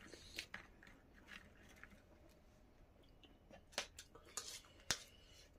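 Faint chewing of food, with a few short, sharp clicks of a metal fork and spoon against a plate, mostly in the second half.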